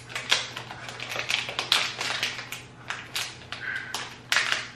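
A small balm sample container being opened by hand: an irregular run of clicks, scratches and rustles.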